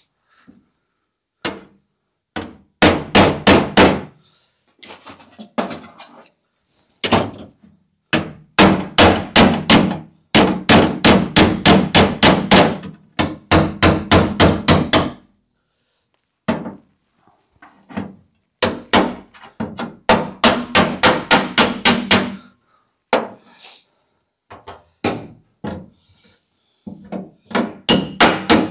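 A panel beater's body hammer tapping the steel rear quarter panel of a classic Lancia coupe in rapid runs, several light strikes a second, with short pauses between runs and the panel ringing under the blows. The panel is being tapped while it is held under a chain pull, to release the stresses in the damaged metal.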